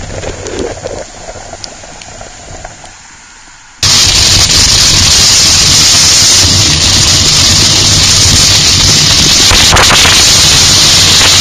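Heavy rain and wind rushing over the microphone of a motorcycle riding through a downpour, steady and loud with a low engine hum underneath. It cuts in suddenly a little under four seconds in, after a quieter stretch of fading noise.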